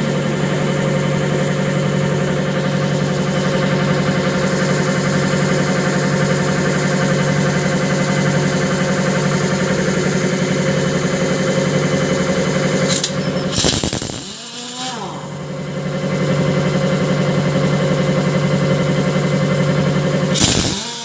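A motor running steadily with a constant hum and hiss. About 13 s in it cuts out and winds down, falling in pitch, then starts again and runs until it stops near the end.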